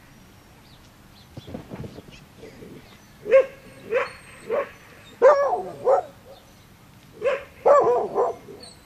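A dog barking repeatedly, about ten sharp barks in loose groups, beginning about three seconds in.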